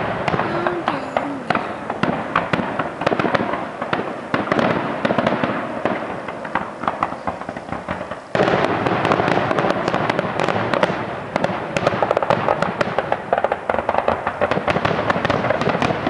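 Aerial fireworks shells bursting in a rapid, dense run of bangs and crackles that turns suddenly louder about eight seconds in.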